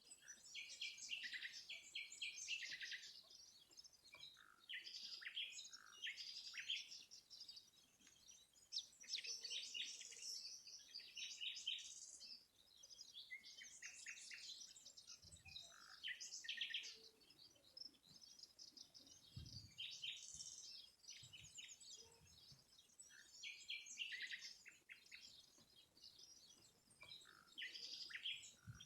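Small songbirds singing, faint: rapid high chirping and twittering phrases, one after another with short pauses.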